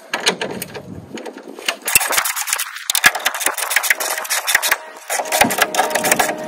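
Ratchet spanner clicking quickly as it spins out a bolt holding the tow bar to the Land Rover Defender 110's rear crossmember, the bolt turning freely. A short squeaking tone comes in about five seconds in.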